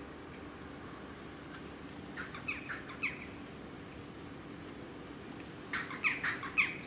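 A bird giving short, sharp calls: a few about two seconds in, then a quicker run of them near the end, over a steady low background hum.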